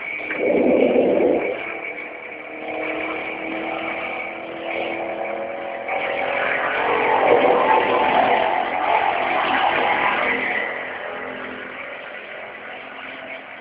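A motor running unevenly, swelling louder about a second in and again midway through, over a steady high-pitched tone.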